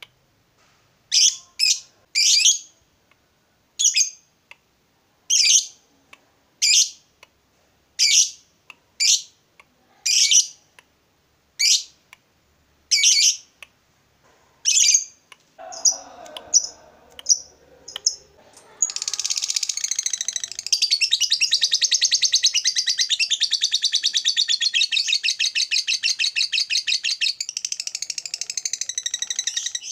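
Lovebird calls: single short shrill calls about once a second, then a few quick chirps, then from about two-thirds of the way through a long unbroken rapid chattering trill. This trill is the 'ngekek panjang' long chatter prized in a lively, excited lovebird.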